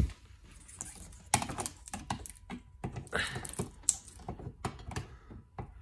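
Plastic Christmas-light plug being handled and pushed into a wall outlet, with the needles of an artificial Christmas tree rustling: a run of irregular small clicks, taps and scrapes.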